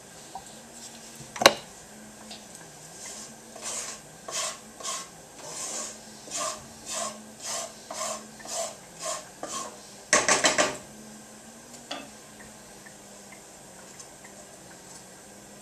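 A spoon scraping stuffing out of a nonstick frying pan in a run of short strokes, about two a second. A sharp knock comes about a second and a half in, and a quick flurry of scrapes about ten seconds in.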